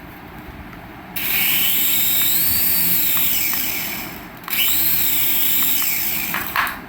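Small electric motor of a remote-control toy whirring in two bursts, one of about three seconds and one of about two. In each burst the whine rises in pitch and then falls away.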